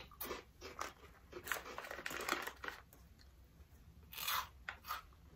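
Crispy baked pea puff snacks crunching as they are bitten and chewed: a run of short, sharp crackles over the first three seconds, then a louder crunch a little past four seconds.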